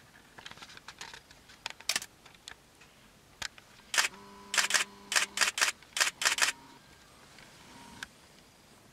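Shutter of a single-lens reflex camera with a telephoto lens firing: a few scattered clicks, then a quick run of about ten loud shutter clicks around the middle.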